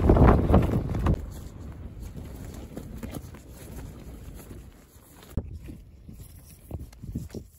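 Strong wind buffeting the microphone on an exposed moorland edge. Loud, fluttering low gusts in the first second die down to a steadier, quieter rush. A few short low thumps from gusts come later.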